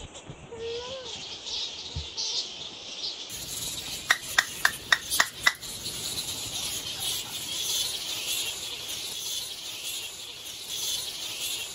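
Fruit bat colony squeaking and chattering in the trees overhead as a dense, continuous high chatter, with a quick run of about seven sharp squeaks a little before the middle.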